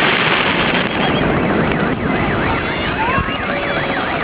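A dense crackle of fireworks, then from about two seconds in an emergency-vehicle siren in a fast yelp, its pitch sweeping up and down about four times a second.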